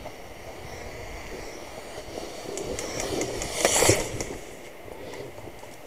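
Movement noise on a body-worn camera: rustling and scuffing as the wearer moves. A run of sharp clicks comes about three seconds in, and a loud scuffle just before four seconds as the camera swings upward.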